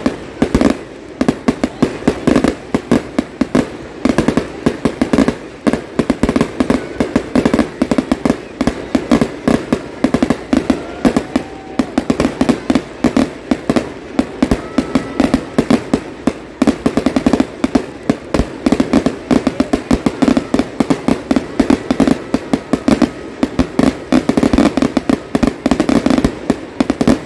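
Fireworks display firing a rapid, unbroken barrage of launches and bangs, several sharp reports a second.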